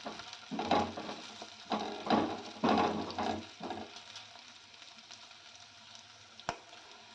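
Diced beans, carrots and capsicum stir-fried in oil in a non-stick kadhai. A silicone spatula scrapes and turns them in several strokes over the first four seconds, above a light sizzle. After that only the faint sizzle of the frying vegetables remains, with a single click near the end.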